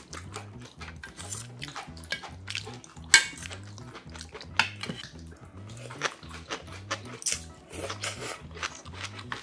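Metal ladle and chopsticks clinking against a thin yellow aluminium pot and stainless steel bowls as pollack stew is ladled out and eaten, with a sharp clatter about three seconds in and mouth sounds of eating. Faint background music with a steady low beat runs underneath.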